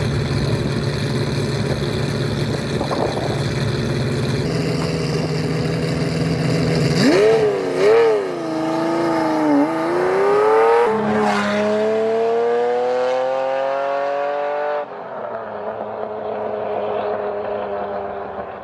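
Ferrari Testarossa's flat-12 engine running at a steady note, then revving and accelerating away about seven seconds in. The pitch climbs and drops back at gear changes around eleven and fifteen seconds in.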